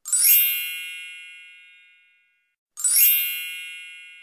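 Two identical bright chime strikes, about three seconds apart, each a quick shimmering onset into a ringing tone that fades away over about two seconds: a logo sound effect.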